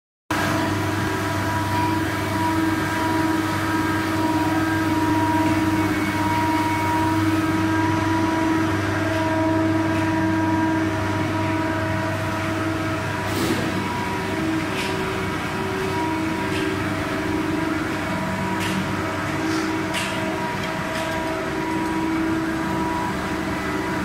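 Plastic sheet extrusion line machinery running: a steady hum of motors and drives with several steady tones, and a few short clicks in the second half.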